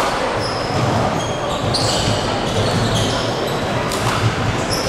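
Basketball game sounds on a hardwood court: a ball bouncing, with short high squeaks from players' shoes scattered throughout and voices in the hall.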